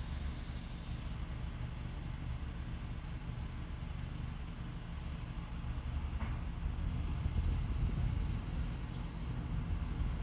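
Truck engine running steadily with a low, even hum. A faint high pulsing tone comes in about halfway through.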